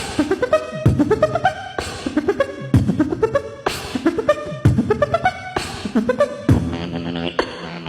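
Beatboxing: vocal kick-drum and snare-like hits in a steady beat, a strong kick about once a second, with rising pitched vocal glides between the hits. Near the end a held, hummed pitched tone comes in under the beat.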